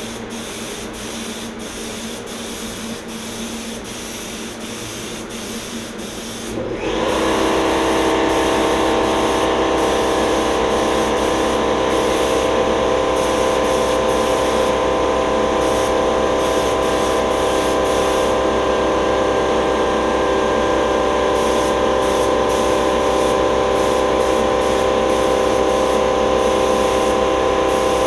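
Compressed-air paint spray gun hissing as it sprays. About seven seconds in, an air compressor kicks on and runs steadily from then on, a louder drone with several held tones under the spray hiss.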